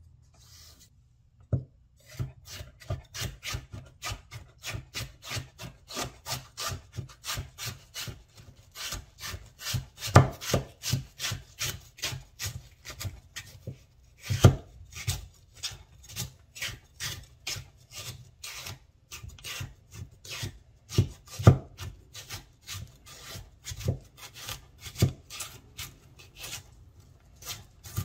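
Chinese vegetable cleaver slicing stacked carrot planks into thin strips on a wooden cutting board. After a single knock, a steady run of crisp cuts begins about two seconds in, roughly two to three a second, each ending with the blade tapping the board, and a few strokes land harder.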